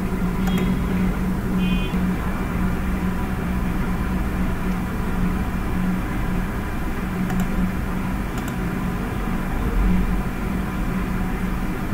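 A steady low hum of background noise, with two short high beeps in the first two seconds and a couple of faint clicks a little past the middle.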